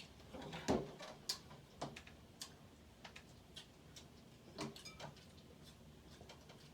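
Crab legs being cracked open by hand and eaten: irregular sharp clicks and cracks of shell, the loudest about a second in.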